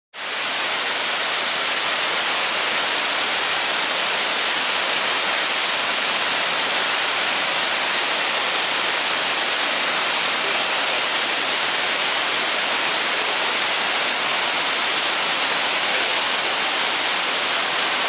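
La Fortuna waterfall, a tall jungle cascade dropping about 70 m, plunging into its pool: a loud, steady rush of falling water and spray that fades in at the start.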